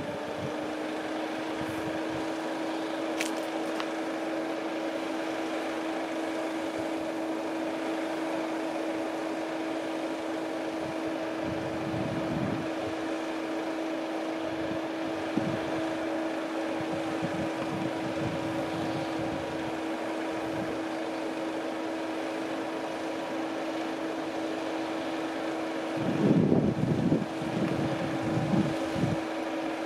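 Level crossing warning alarm sounding one steady, unbroken tone while the barriers are down, warning that a train is approaching. A few gusts of wind buffet the microphone near the end.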